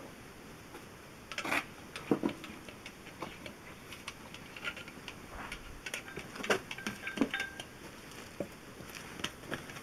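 Scattered light metallic clicks and clinks, irregular and a few seconds apart, as a camshaft is handled and given a coat of oil from an oil can.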